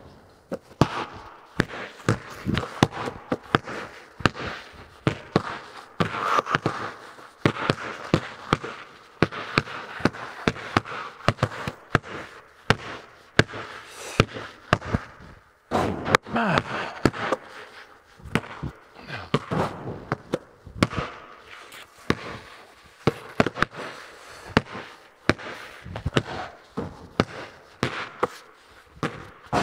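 Basketballs bouncing on a bare concrete floor and banging off the rim, backboard and steel walls: a long run of sharp, irregular bangs, each ringing out in the echo of a large, empty metal-sided barn.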